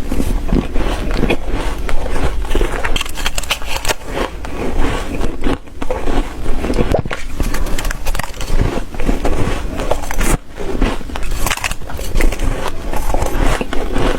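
Ice being bitten and chewed close to the microphone: dense, continuous crunching and cracking with many sharp snaps.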